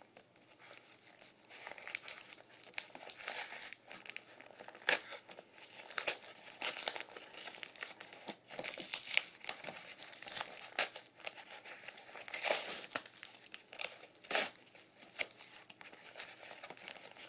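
Packaging being crumpled and torn open by hand: irregular crinkling and rustling with sharp crackles and rips as a mailed parcel is unwrapped.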